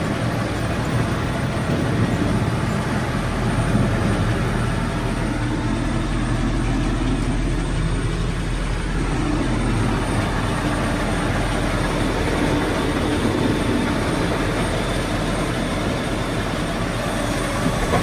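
Tractor engine running steadily under load with the working potato harvester alongside, heard from inside the tractor cab as a steady mechanical drone.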